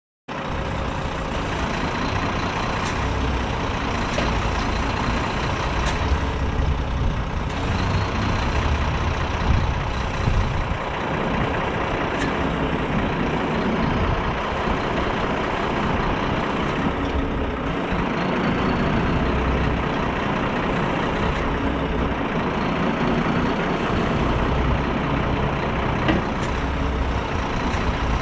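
Renault Kerax 380 DXI truck's six-cylinder diesel engine running steadily, powering the hydraulics of its Palfinger PK16001-K loader crane as the boom is moved. A faint whine rises and falls a few times over the engine, and there are a few short clicks.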